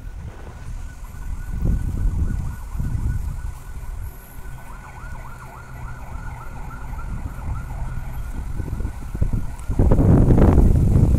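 Low rumble of wind and motion noise on a moving phone microphone, growing much louder about ten seconds in. Behind it runs a thin, steady high whine that warbles rapidly for a few seconds in the middle.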